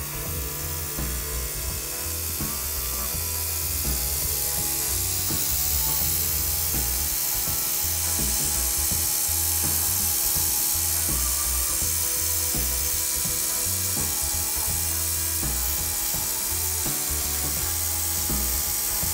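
Paint spraying onto small model car parts: a loud, steady spray hiss that grows louder about four seconds in, over background music with a steady bass line.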